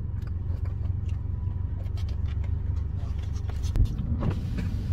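Car cabin noise while driving: a steady low road and engine rumble, with a single sharp thump a little under four seconds in.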